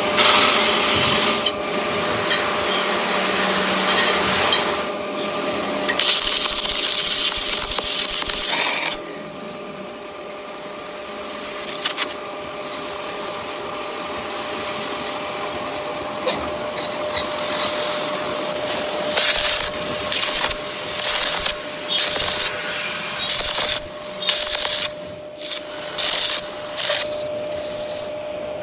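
Metalworking power machinery running with a steady hum under a loud hiss, dropping to a quieter run after about nine seconds. Near the end comes a series of short hissing bursts, roughly one a second.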